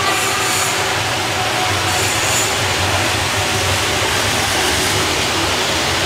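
Steady running noise of an industrial microwave drying and sterilizing tunnel machine, an even mechanical whirr with a low hum underneath.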